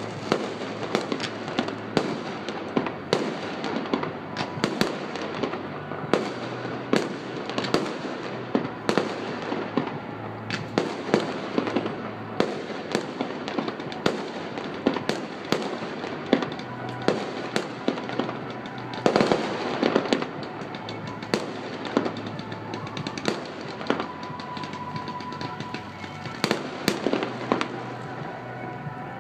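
Fireworks going off in quick succession: a continuous run of sharp bangs and cracks, several a second, with a denser flurry about two-thirds of the way through.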